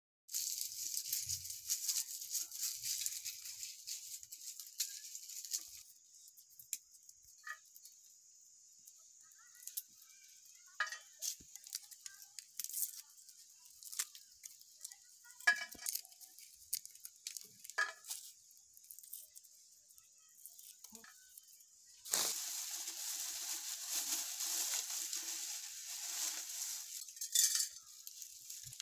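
Dry garlic skins crackling and rustling as cloves are peeled by hand. Short scattered crackles come through the middle, with longer spells of rustling at the start and again from about two-thirds of the way through.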